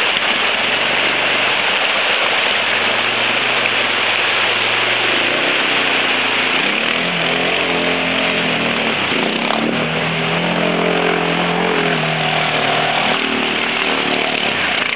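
Arctic Cat 500 quad's single-cylinder engine revving up and down as it drives through a fast-flowing ford, over the steady rush of water. The engine comes up out of the water noise about five seconds in and is loudest in the second half.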